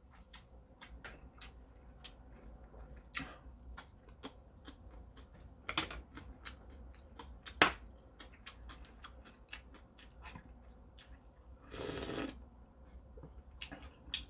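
Close-up eating sounds from a bowl of ramen: chewing and mouth clicks with chopsticks tapping the ceramic bowl, two of the clicks louder. A short slurp comes near the end.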